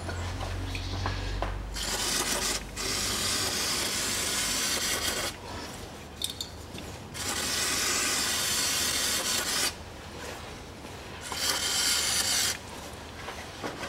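Aerosol cleaner sprayed from a can with a straw nozzle onto the Haldex coupling housing, in three long hisses with short pauses between.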